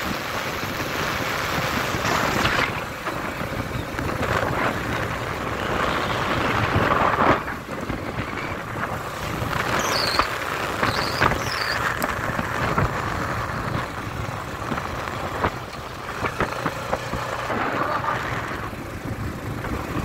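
Wind rushing over the microphone with steady engine and road noise from riding on a motorcycle.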